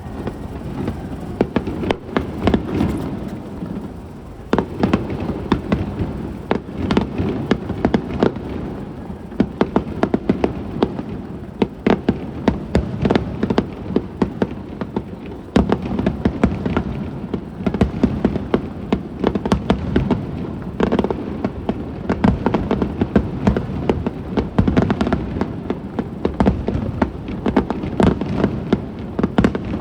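Aerial fireworks going off in a dense barrage: many sharp bangs and crackles overlapping closely, with deeper booms underneath.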